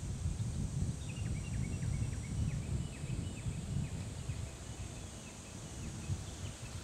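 Wind buffeting the microphone in an irregular low rumble, with a bird calling in quick, short falling chirps, about three a second, over a faint steady high hiss.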